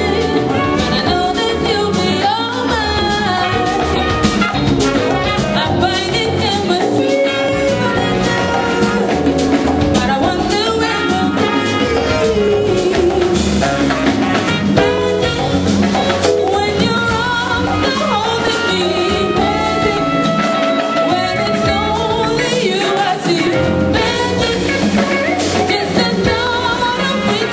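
A live band playing, with singing over a drum kit and congas.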